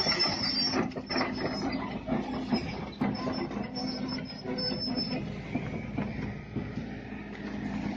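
Heavy machinery running with a steady low hum, many scattered metallic knocks, and an on-and-off high-pitched metal squeal that stops about five seconds in.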